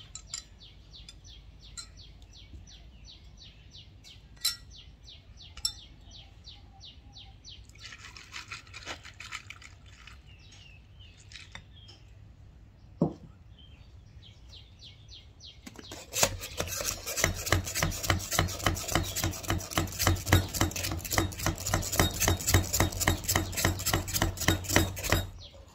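A metal spoon ticks against glass while stirring coffee, and about eight seconds in the coffee is poured over ice. There is a sharp knock about halfway through. From about sixteen seconds a hand-pumped plunger milk frother in a stainless steel jug is worked in rapid, even strokes to froth milk, stopping just before the end.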